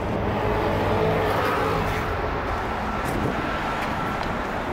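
City street traffic: a steady rumble of cars passing on the avenue, with a faint engine whine in the middle.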